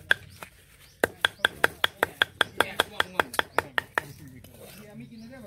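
Kitchen knife chopping spring onions on a wooden chopping block cut from a tree trunk: a quick, even run of knocks, about five a second, that stops about four seconds in.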